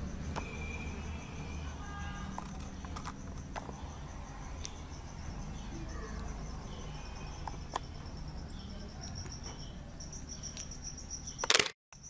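Steady high-pitched pulsing chirp of crickets over a low hum, with a few faint clicks; a short loud burst near the end.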